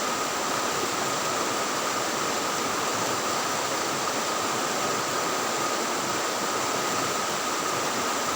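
Fast-flowing river water rushing steadily, with a faint steady high tone over it.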